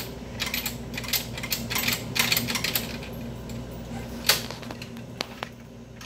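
A coin tied to dental floss being pushed into and pulled back out of a vending machine's coin mechanism: a run of small metallic clicks and rattles, with a sharper click about four seconds in. A steady low hum runs underneath.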